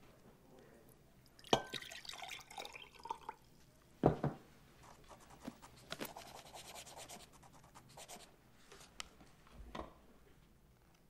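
Lemonade poured from a glass pitcher into a drinking glass, followed by dull knocks of glass set down on a wooden table, the loudest about four seconds in.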